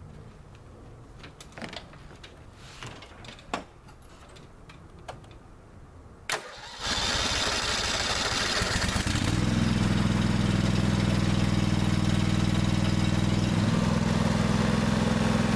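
Husqvarna YTH2148 riding mower's engine being started: a sharp click, about two seconds of the starter cranking, then the engine catches and runs steadily, left running to warm up the oil.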